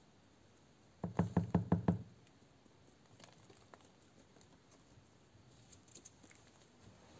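A quick run of about six soft knocks lasting about a second, then faint crackling and ticking as damp potting soil is shaken and crumbled off the roots of a grape cutting over a plastic tub.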